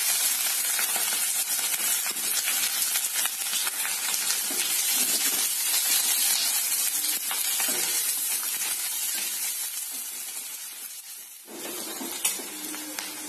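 Sliced onion, chillies, bay leaf and whole spices sizzling loudly in hot oil in a kadhai just after being tipped in. The sizzle fades after about eight seconds and drops away sharply near the end, where a softer sizzle carries on as a spatula stirs.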